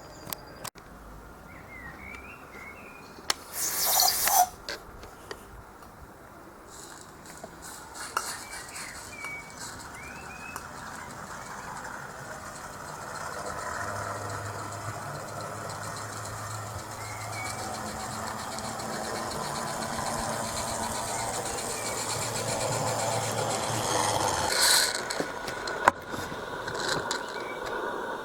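A 32 mm gauge garden-railway model goods train running along the track. Its steady mechanical running hum grows louder from about twelve seconds in and peaks near the end as it passes close by. Birds chirp early on, and there is a short loud burst of noise about four seconds in.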